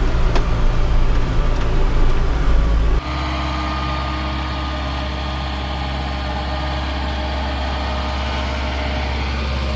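Vehicle engine running steadily. About three seconds in it cuts abruptly to a slightly quieter, even engine drone.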